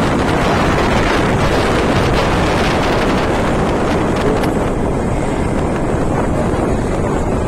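Steady wind noise buffeting the microphone of a rider on a moving Honda Activa 6G scooter, over road and traffic noise.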